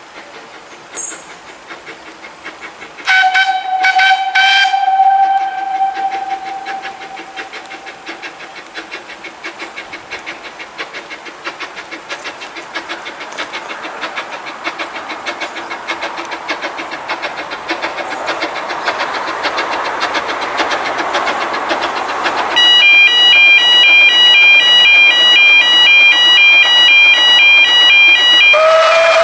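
Narrow-gauge steam locomotive blowing its whistle, a few short toots then a held note, and then working towards the listener with its exhaust beats growing steadily louder. Near the end a level-crossing warning alarm pulses about twice a second, and the whistle sounds again just before the close.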